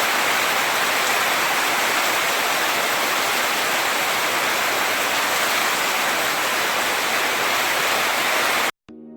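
Heavy tropical downpour: a dense, steady hiss of rain. It cuts off suddenly near the end, and soft ambient music with long held tones begins.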